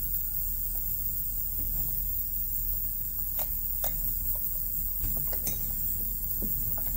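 A few scattered light clicks and knocks of tools being handled at a workbench, over a steady low hum.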